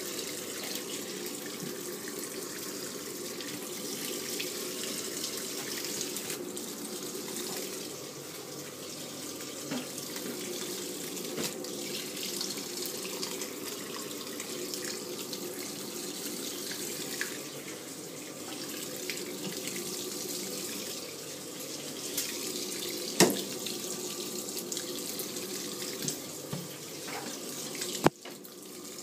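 Water running and sloshing in a Samsung 7.5 kg top-load washing machine during a wash cycle, with a faint steady hum underneath. A sharp click comes about 23 seconds in and another near the end, after which the sound drops in level.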